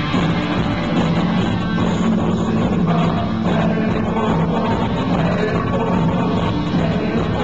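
Rock band playing live, recorded on a phone from the audience.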